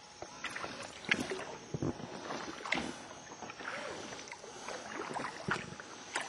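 Water splashing and lapping around an inflatable sea canoe as it is paddled, with irregular small knocks and clicks.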